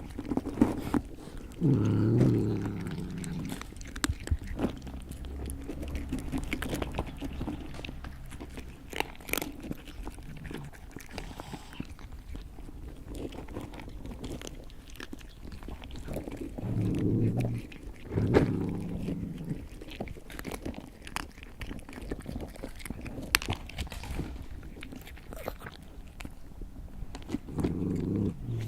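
A cat chewing and biting its food, with many small wet clicks and crunches. Now and then there is a low, drawn-out rumble lasting about a second.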